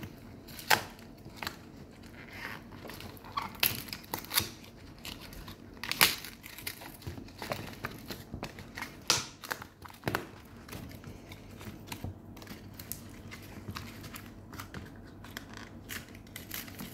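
Cardboard packaging of a Kinder Surprise pack being handled and torn open by hand: irregular crinkling, tearing and tapping, with a sharper click about six seconds in.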